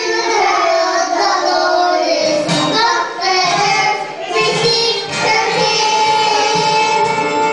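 Young children's choir singing a Christmas song into handheld microphones, holding one long note in the last couple of seconds.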